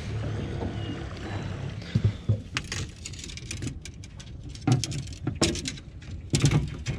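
Spinning rods and reels rattling and knocking against each other and the rod rack on the boat deck as one rod is pulled out. A steady low rumble comes first, then the sharp clicks and clatters start about two seconds in and come in several quick clusters.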